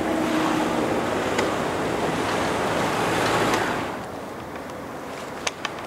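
Steady rushing noise on an open bridge that swells, holds, and dies away about four seconds in, with a few faint clicks near the end.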